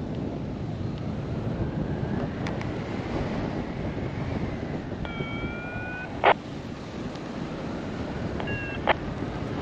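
Airflow buffeting the microphone during a paraglider flight, a steady rushing wind noise. About five seconds in a held electronic tone sounds for about a second and ends in a short loud blip, and near the end a shorter tone and blip follow.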